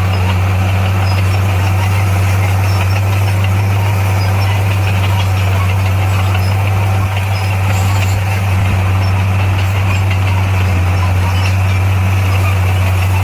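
Diesel engine of heavy earthmoving equipment running steadily with a deep, even drone.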